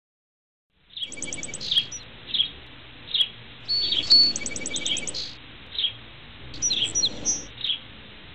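Birds chirping, with repeated short calls and quick high trills over a faint hiss. The chirping starts about a second in.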